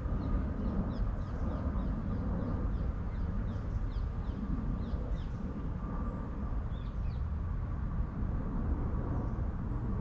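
Wind buffeting the microphone as a steady low rumble, with a small bird giving a rapid series of short, high, falling chirps for most of the first seven seconds.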